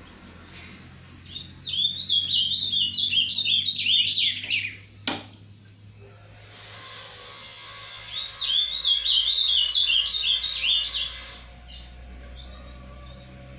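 Caged ultramarine grosbeak (azulão) singing two quick warbled phrases of rapidly zigzagging notes, a few seconds apart, with a single sharp click between them.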